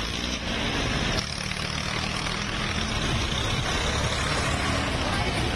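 Diesel farm tractor engines running as a column of tractors drives along a road, a steady low engine sound with road and wind noise over it. About a second in, the hissy upper noise drops and the low engine hum carries on.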